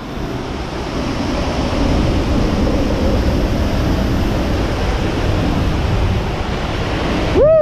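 Waterfall pouring close by: a loud, steady rush of falling water. A child's brief high call near the end.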